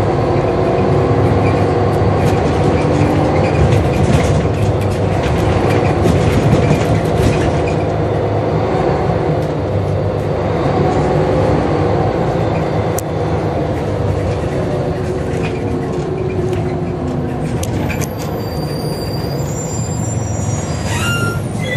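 Scania L94UB bus heard from inside the saloon, its diesel engine and ZF automatic gearbox pulling away and running along, with the gearbox whine rising and falling in pitch through the gear changes. Near the end it slows for a stop, with a high brake squeal.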